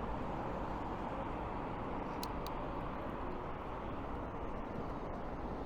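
Steady noise of road traffic on a busy street, with two short high ticks a little over two seconds in.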